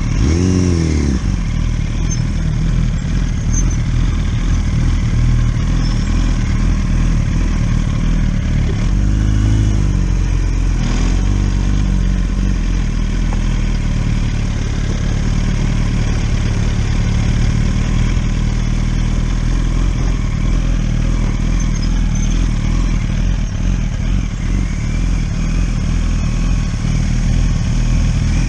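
1000 cc inline-four sport motorcycle engine running while riding a trail, its pitch falling sharply in the first second and rising then falling again around nine to ten seconds in, otherwise holding a steady drone.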